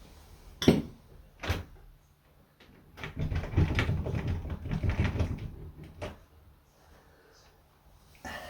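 Hard clunks and rattling of the removed uPVC door handles and their metal spindle bar being handled: two sharp knocks, then a couple of seconds of clatter and a last click.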